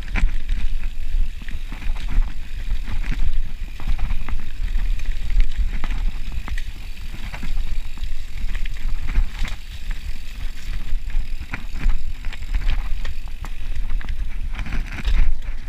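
Mountain bike riding down a dirt forest singletrack: a steady rush of wind on the microphone with tyres rolling over dirt, and frequent sharp clicks and rattles from the bike going over roots and rocks.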